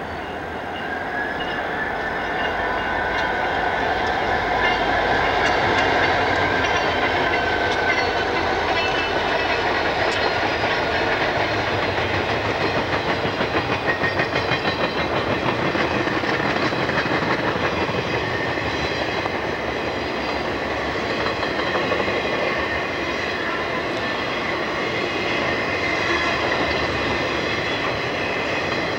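Diesel-hauled freight train passing close by. The locomotives' engines run past first, then the wheels of the trailer cars clatter steadily over the rail joints. Sound grows louder over the first few seconds.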